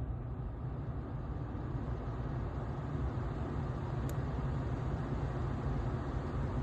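Steady low hum with hiss, unchanging, and one brief faint click about four seconds in.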